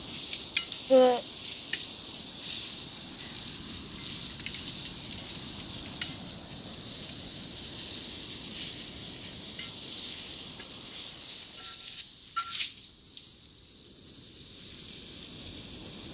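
Sliced shallots and curry leaves sizzling and frying in hot oil in a wide aluminium pan, stirred with a wooden spatula that clicks against the pan a few times.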